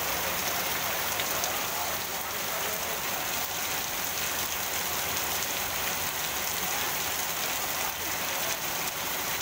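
Torrential rain falling steadily on a paved street and rooftops: a dense, even hiss with no let-up.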